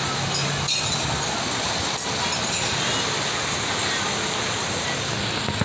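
Steady outdoor background noise of a busy park walkway, with a faint low hum in the first second and a few light clicks.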